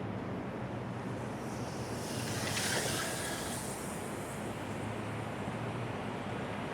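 Steady outdoor street noise, a low rumble with wind on the microphone, swelling to a louder hiss about two to three seconds in.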